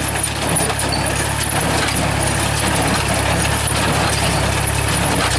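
Tractor-drawn straw baler at work baling rice straw: a steady engine hum with the baler's machinery running over it.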